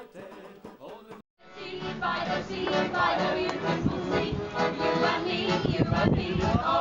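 Quiet instrumental music, broken by a sudden cut to silence just over a second in, then louder music with several voices singing together over accompaniment.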